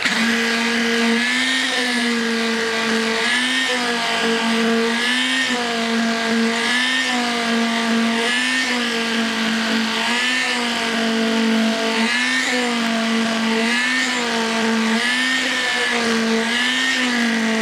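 Electric concrete immersion vibrator (poker) running with a steady high hum, its pitch lifting briefly about every one and a half to two seconds as the poker is worked through the fresh concrete to settle it in the formwork.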